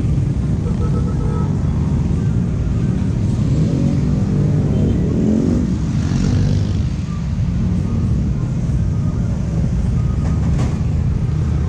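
Motorbike engine running under steady low road and wind noise, heard from a camera riding on the bike. The engine note rises about four to six seconds in as it picks up speed.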